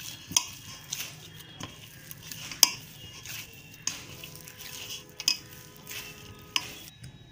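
Oiled pizza dough being kneaded by hand, with irregular sharp clicks and knocks of the handling and a few louder ones, the loudest about two and a half seconds in.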